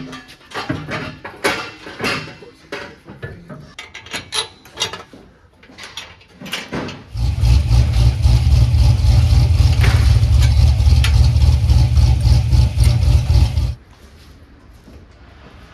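Scattered clicks and knocks of tool work. About seven seconds in, an electric motor starts with a steady low hum, runs for about six seconds and cuts off suddenly.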